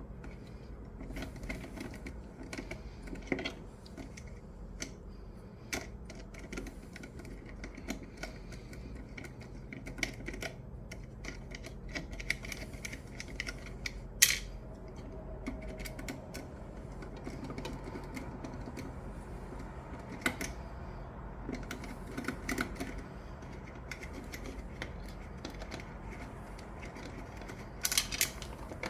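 Scattered clicks and taps of small plastic and metal parts being handled as a watch winder is taken apart. One sharper click comes about halfway through, and a quick cluster of clicks comes near the end.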